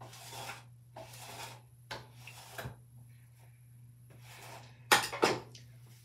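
Hairbrush bristles dragged through hair in several uneven rasping strokes, the loudest pair about five seconds in.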